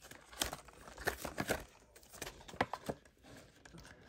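Cash and paper envelopes being handled: irregular rustling and crinkling with small clicks as banknotes are taken out of a budgeting envelope.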